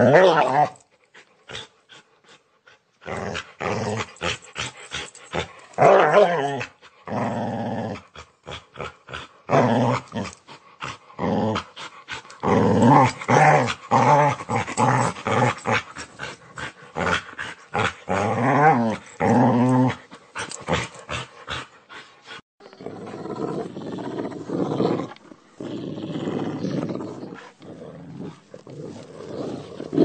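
A dog snarling and growling aggressively in rapid, choppy bursts, the sound of an attacking dog. Near the end it turns into a rougher, more even rumbling growl.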